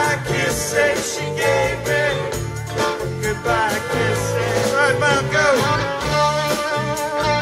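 A live rock band playing a song: electric guitars, bass and drums with a horn section.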